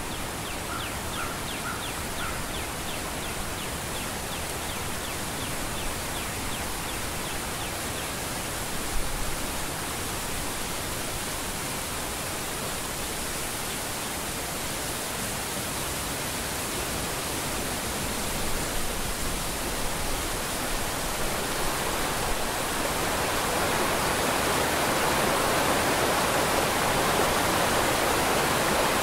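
Steady rush of falling water from Webster's Falls, a waterfall, growing louder from about two-thirds of the way in. Faint high chirping runs through the first several seconds, and there is a brief low bump about nine seconds in.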